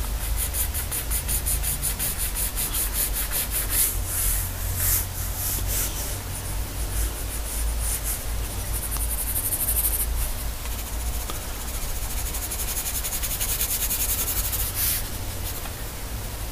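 Graphite pencil scratching across drawing paper in rapid short hatching strokes, laying in texture. A few stretches of stroking are harder and louder.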